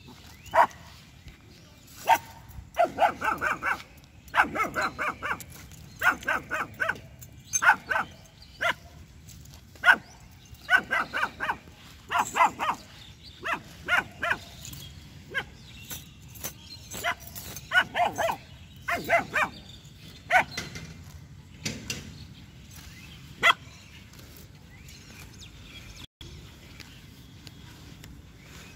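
A two-month-old German Shepherd puppy barking repeatedly in high-pitched barks, often in quick runs of several, falling quiet about four-fifths of the way through.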